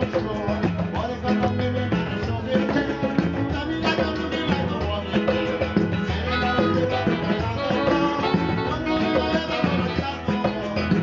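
Live calypso band playing, with saxophones and a singer at the microphone over the band.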